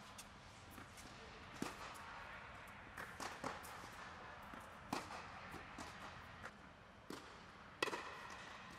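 Tennis rally: a tennis ball hit with rackets and bouncing on a hard court, about six sharp pops spread a second or so apart, the loudest near the end, each ringing briefly in the echo of an air-supported tennis dome.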